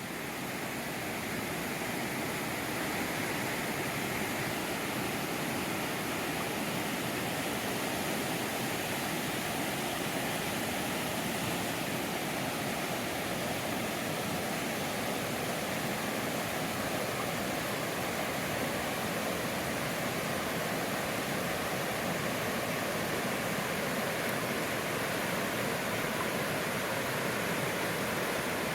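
A river's water rushing, a steady, even wash that fades in over the first couple of seconds.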